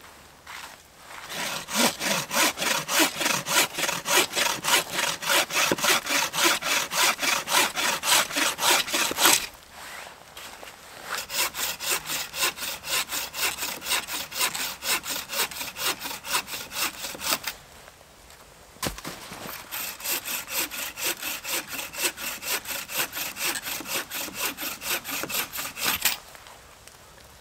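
Wooden-framed bow saw cutting through a snow-covered log in fast, even back-and-forth strokes. It works in three runs, broken by two short pauses.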